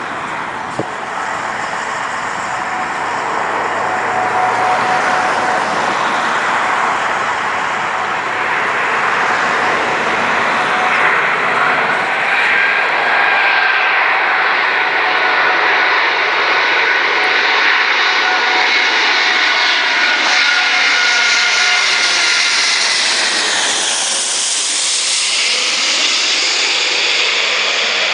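Airbus A380 four-engine jet airliner flying low overhead on landing approach: a steady jet-engine rush with whining tones, growing louder over the first few seconds. About three-quarters of the way through, the whine falls in pitch as the aircraft passes overhead and moves away.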